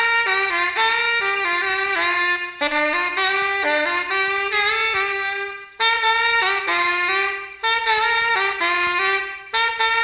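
Saxophone and brass playing a jazzy melody in phrases of two to three seconds, with short breaks between them.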